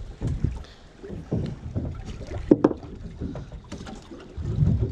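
Sea water slapping against the hull of a small fishing boat, an uneven low rumble with scattered handling knocks on the deck; one sharper, louder knock about two and a half seconds in.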